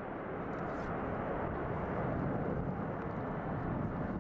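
Jet noise from a formation of BAE Hawk T1 jets flying past: a steady, low rumbling roar that builds slightly.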